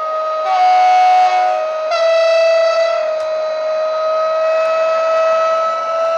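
Sound decoder of a model ÖBB Taurus electric locomotive playing through its upgraded speaker: two horn blasts, the second on a different note, about half a second and two seconds in, over a steady electric traction whine that climbs slowly in pitch as the loco runs.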